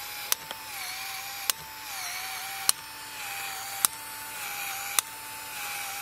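Battery-powered PEX expansion tool running, expanding a ProPEX ring on blue PEX tubing: a steady motor whine with a sharp click about every second as the head opens and turns, the pitch sagging slightly with each stroke.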